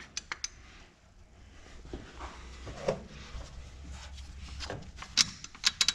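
Metal parts and tools clinking as an alternator is worked onto its mounting bracket: scattered handling noise, then several sharp clicks and knocks near the end.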